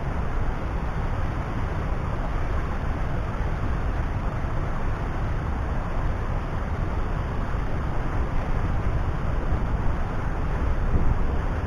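Waterfall on a river: water rushing over the falls, a steady, deep, even noise with no breaks.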